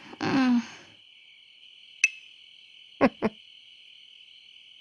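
Crickets chirring steadily in a high, even drone, as a night-time sound effect. A brief voice sound comes at the start, a sharp click about two seconds in, and two quick falling squeaks a second later.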